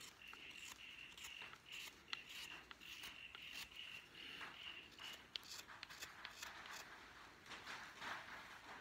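Carving knife paring shavings from a wooden spoon: faint short scraping cuts and small clicks, coming thicker in the last few seconds. A thin steady high tone runs under the first five seconds and then stops.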